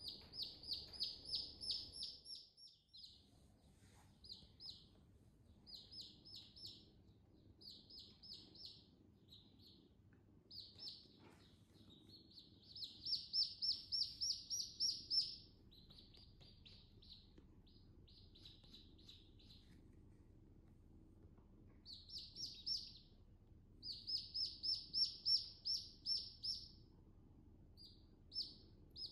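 Chicken chicks peeping in quick runs of short, high peeps, about four or five a second, with brief pauses between runs.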